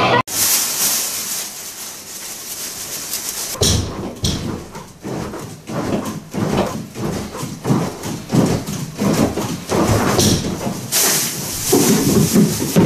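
A steady hiss for the first few seconds. Then irregular knocks, thumps and rustling as a mascot costume bumps against stacked cardboard boxes draped with cloth, with louder clattering near the end as the boxes are knocked over.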